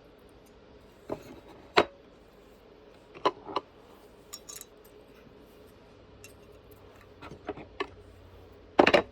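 Metal parts and tools clinking and knocking as they are handled and test-fitted: scattered sharp clanks, the loudest cluster of them near the end.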